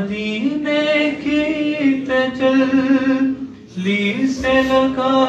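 A man singing an Urdu devotional verse unaccompanied, in long drawn-out held notes. Each phrase steps up in pitch and is held, with a brief breath about three and a half seconds in before the next phrase starts.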